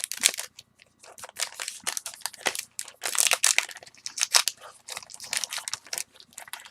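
A trading-card pack's wrapper being torn open and crinkled by hand: a dense run of irregular crackles and rustles.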